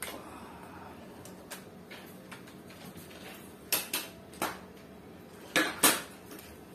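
Sharp knocks and clunks from a full-metal AWM L96 rifle replica being handled and moved on a tiled floor: a few scattered knocks, a quick run of three a little past halfway, and the loudest pair near the end.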